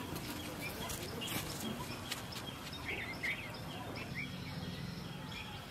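Birds chirping in short, scattered calls over a steady outdoor background hiss.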